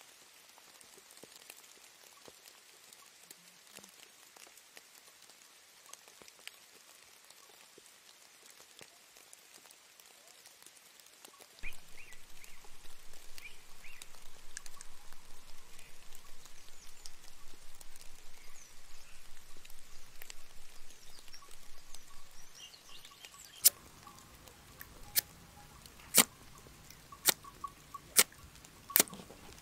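Faint rain patter, then a louder, dense rough noise for about twelve seconds. Near the end come six sharp metallic clicks about a second apart: a steel fire striker struck by hand to throw sparks onto a fire lay.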